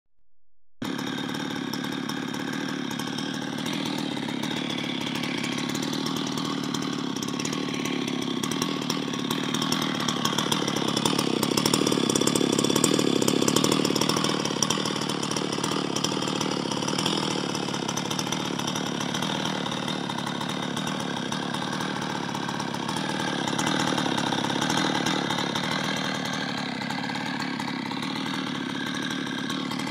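Stihl MS 660 two-stroke chainsaw, rebuilt with a big-bore cylinder kit, idling steadily on its own, a little louder around the middle.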